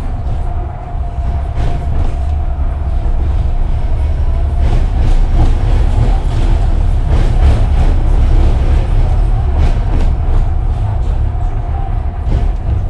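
Tram running on rails: a steady low rumble with a steady whine over it and scattered clacks and knocks from the wheels.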